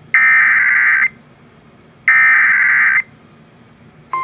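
Emergency Alert System SAME header: harsh digital data bursts, each about a second long and a second apart, sounding twice here. These are the repeated header codes that announce a flash flood warning. A steady alert tone starts right at the end.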